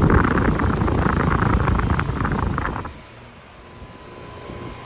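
2007 Coleman 2-ton central air conditioner condenser running: a loud rush of air buffeting the microphone for almost three seconds, then it drops away to the unit's steady hum.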